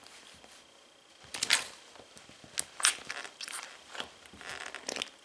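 Justin patrol boots stomping and grinding into mashed food on a hard kitchen floor. The soles press and twist through the mess in several short bursts of noise that begin about a second in, the loudest about a second and a half in and near three seconds.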